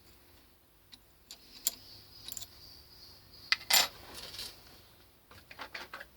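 Small steel parts and hand tools clinking and clattering as they are handled, with a few light ticks and one loud clink about three and a half seconds in.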